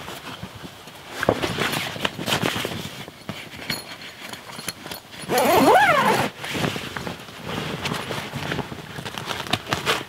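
Canvas swag and sleeping bag rustling and flapping as the swag's canvas is pulled shut from inside, with a zip run a little past halfway, its rasp rising and then falling in pitch for about a second.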